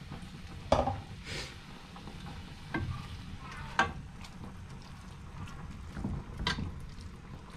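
A wooden spatula stirring shredded chicken and tomato sauce in a metal pot, with a few sharp knocks spread through as the utensils hit the pot.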